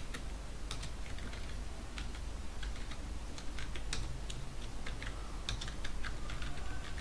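Computer keyboard typing: irregular runs of keystroke clicks, over a steady low hum.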